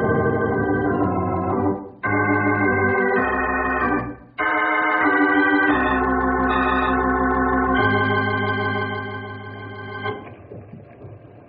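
Organ music bridge marking a scene change in a radio drama: a series of held chords, changing every second or two with a short break about four seconds in, swelling in the middle and fading out near the end.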